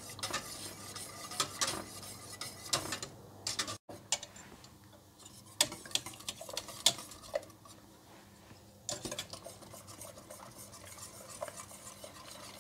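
Wire whisk stirring a heating milk pudding in a steel pot, its wires scraping and clicking against the pot at irregular moments. The mixture is being whisked continuously on the heat as it starts to thicken.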